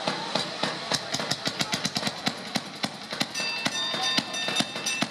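A railroad motorcar's small engine running loud as the car rolls along the track, a rapid, even clatter of knocks. A high steady squeal joins in about three seconds in.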